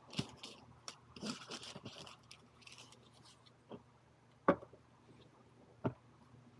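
Quiet handling noises: light rustling and scattered small clicks, then two sharper single clicks about four and a half and six seconds in.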